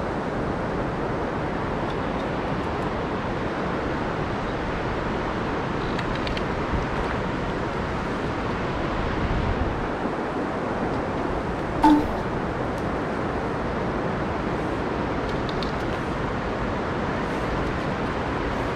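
Steady rushing of flowing river water, with one short sharp knock about twelve seconds in.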